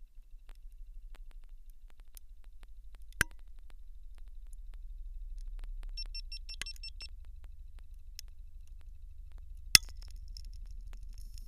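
Low, rhythmic pulsing of the pump pressurising the test chamber, with a sharp crack about three seconds in and a much louder crack near the end, as the GoPro HERO2 and its housing, at over 20 bar, give way and the camera's screen goes dead. A short run of high beeps comes about six seconds in.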